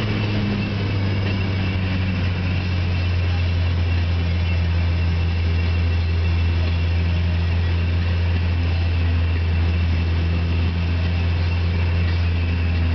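Datsun 510's engine droning at steady revs in third gear, heard from inside the car's cabin as it drives along.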